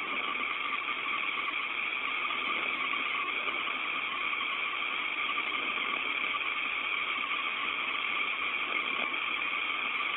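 Steady hiss of an open space-to-ground radio channel, thin and cut off above the middle of the range like a radio voice link, with no one talking.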